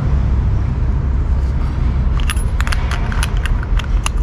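A hand tube wrench turned by a bar clicking and rattling, metal on metal, as it tightens the retaining nut of a wire cup brush on a brushcutter shaft: a quick run of sharp metallic clicks in the second half. A steady low rumble continues in the background.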